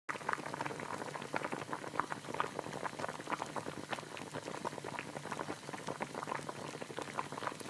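Soup boiling in a pot: a steady bubbling with many small pops.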